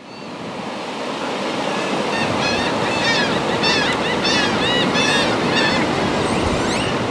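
Ocean surf washing steadily, fading in over the first second. Birds call in a quick series of short, arching cries from about two seconds in until near six seconds.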